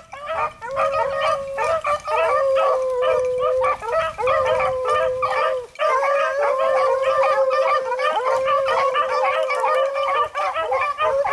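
A pack of beagles baying on a rabbit's trail, several hounds calling at once in overlapping drawn-out bawls and short chops.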